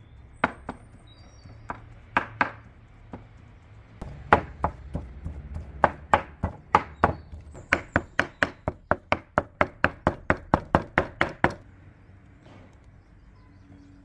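Cleaver chopping meat into mince on a wooden board. A few scattered strokes come first, then a fast, even run of chops at about three to four a second, which stops about two seconds before the end.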